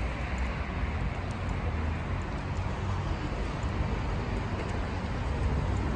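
Steady road traffic noise with a low rumble of passing vehicles.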